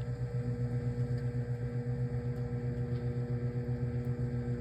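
Microwave oven running, a steady hum with a fast, even wavering pulse in its level.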